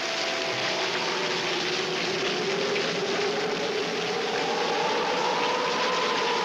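Hurricane wind howling: a loud, steady rush with a whistling tone that slowly rises in pitch.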